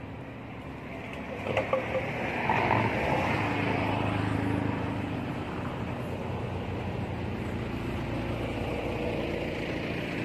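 Road vehicle noise: engine and tyre sound swells to a peak about two to three seconds in, then holds as a steady low engine hum. There are a few short knocks about a second and a half in.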